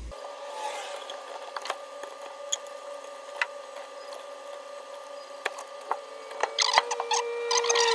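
Hands handling and marking a new rubber coolant hose on a rubber mat, making scattered light clicks and taps over a steady hum. The clicks grow busier near the end.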